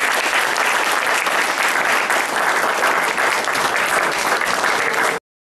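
Audience applauding, a dense, steady clapping that cuts off suddenly near the end.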